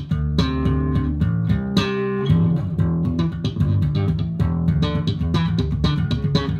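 Electric bass played slap-style through a Furnace Bass Drive overdrive pedal: a fast run of sharp slapped and popped notes over a punchy low end.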